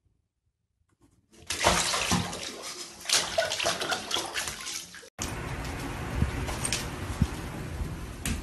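Water splashing and sloshing in a filled bathtub, loud and uneven for about four seconds, with a cat on the tub's edge. It cuts off sharply and gives way to a steadier noise with a few soft knocks.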